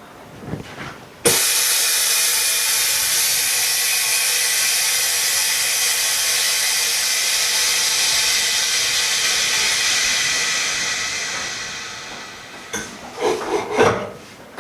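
Compressed air hissing out of an OCA bubble remover (pressure autoclave) as its chamber is vented at the end of the de-bubbling cycle. The hiss starts suddenly about a second in, holds steady, then dies away over a couple of seconds, followed by a few short knocks.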